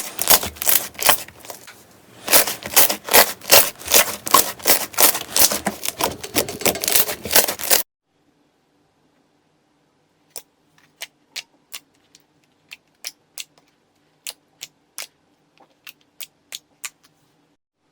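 Slime being pressed and worked by hand, making rapid sharp clicks and pops, about four or five a second. After a cut about eight seconds in, quieter, sparser clicks follow.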